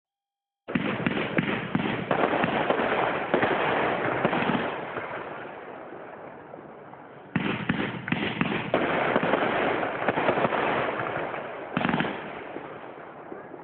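Fireworks display: bursting shells with dense, rapid popping and crackling that comes in three waves, one starting about a second in, one about halfway through and one near the end, each fading away after its loud onset.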